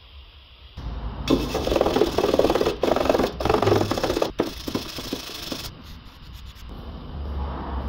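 Hand wire brush scrubbing the bolted joint on a car's exhaust pipe in quick back-and-forth strokes for about four seconds, cleaning rust and dirt off the bolts before they are undone.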